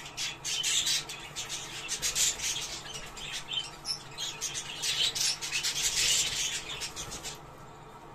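Budgerigars chattering and warbling in a rapid, dense stream of high chirps and squawks: budgie breeding-stimulation chatter. It stops shortly before the end.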